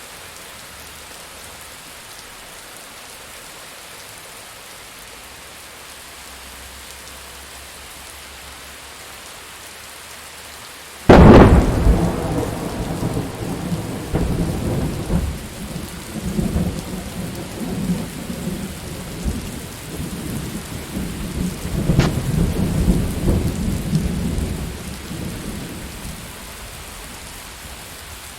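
Steady rain, then about eleven seconds in a sudden loud thunderclap that rolls on as low rumbling thunder for about fifteen seconds, with a second sharp crack partway through before it fades back to the rain.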